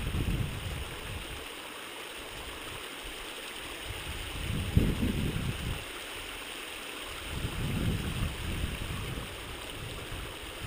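Creek water running steadily over rocks, with a couple of brief low rumbles about halfway and near the end.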